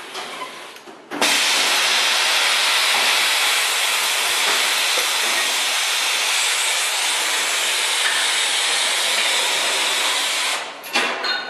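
Vacuum lifter gripping and raising a gas cylinder: a loud, steady hiss of air starts suddenly about a second in and cuts off near the end, followed by a few clicks.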